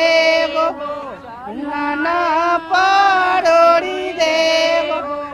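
A woman singing a Chhath folk song in long held, melismatic notes that slide between pitches, dipping briefly about a second in.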